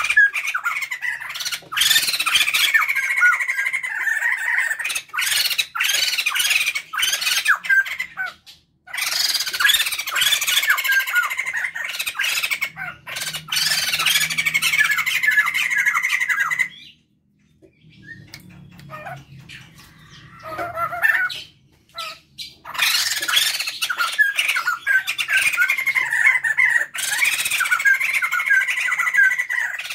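A male and female poksay jambul (white-crested laughingthrushes) calling loudly together in long bouts of raucous chattering, with a short pause a little past the middle before the chorus starts up again.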